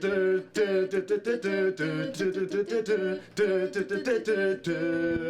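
A man and a woman singing a pop melody a cappella, phrase by phrase with short breaths between.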